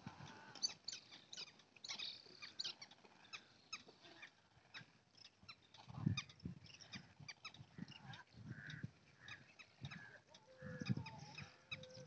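A large flock of waterbirds calling, many short overlapping calls, with a few low rumbles about six seconds in and again near the end.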